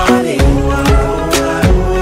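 Pop music with a steady beat and a repeating riff of short pitched notes, with no singing.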